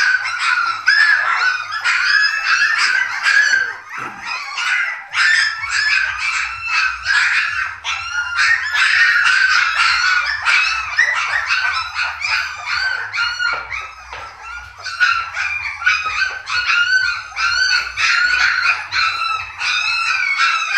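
A litter of three-week-old Dalmatian puppies whining and squealing, many short high-pitched cries overlapping almost without pause, with a brief lull about four seconds in.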